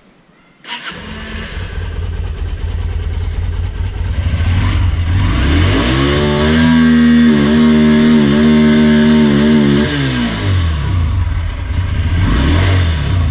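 Yamaha XV250 Virago's 249 cc air-cooled V-twin starting and catching at once, then revved up, held at a higher speed for a few seconds and let drop back to idle, with a smaller blip near the end. It is breathing through a pod air filter and a drilled exhaust, and to the owner it sounds as if it will need little air-fuel screw adjustment.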